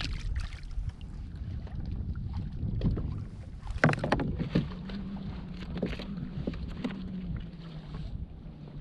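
Spinning reel being wound while a hooked fish is played from a fishing kayak, the fish splashing at the surface near the start, with wind noise on the microphone. Scattered clicks and a sharp knock about four seconds in; a steady low hum runs from about halfway in until near the end.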